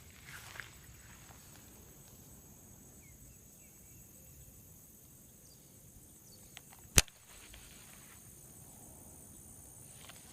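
Quiet pond-side background with a faint steady high hum, broken by one sharp click about seven seconds in and a couple of small ticks near the start.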